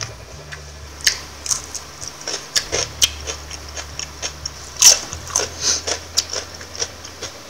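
Raw cucumber slices being bitten and chewed close to the microphone: a run of short, crisp crunches, the loudest about five seconds in.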